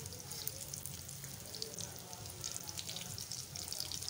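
Egg-coated bread slices sizzling in hot ghee on a flat tawa, with a steady crackle of small spitting pops.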